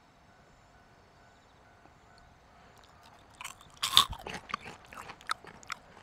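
Someone biting and chewing a deep-fried kaempfer cicada (niiniizemi): a string of crisp crunches that starts about halfway through, with the loudest crunch shortly after.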